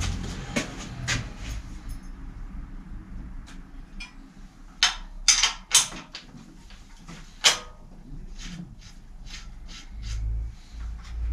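Clicks and knocks of hand tools and bicycle parts being handled at a bike repair stand, with a cluster of loud, sharp clicks around the middle and a low rumble near the end.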